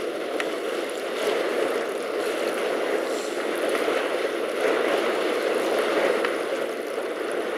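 Steady rushing noise of a storm raging outside, wind and rain, with a few faint ticks.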